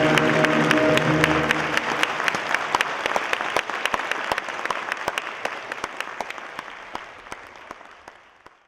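Audience applause, a dense patter of clapping, under the last held chord of orchestral music. The chord stops about two seconds in, and the clapping thins out and fades away.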